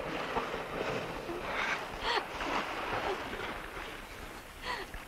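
Ocean surf breaking and washing around, a steady rushing noise, with a few faint short sounds over it.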